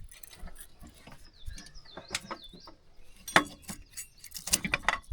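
Irregular metal clicks and knocks as a seized piston is tapped and worked out of a 12-valve Cummins cylinder, the loudest knock about three and a half seconds in. A bird chirps a few times about two seconds in.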